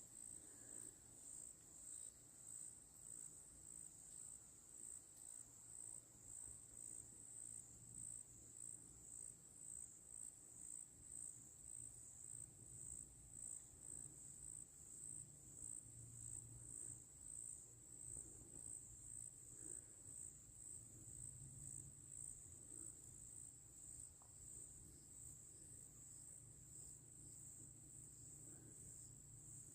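Faint insect chorus: a steady high-pitched trill that pulses in an even rhythm, typical of crickets.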